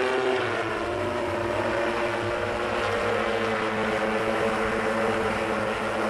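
Jetson One prototype's eight brushless electric motors and propellers humming steadily as the multirotor hovers with its pilot, a layered drone-like whine that wavers slightly in pitch as the rotors adjust.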